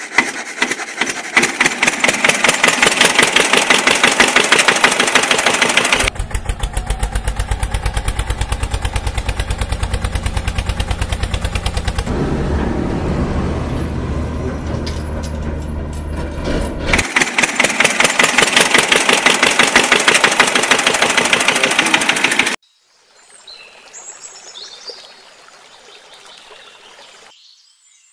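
A dubbed engine sound, running with a fast, even chugging, changes character at sharp cuts about 6, 12 and 17 seconds in. It stops abruptly a little past 22 seconds, leaving a faint outdoor background.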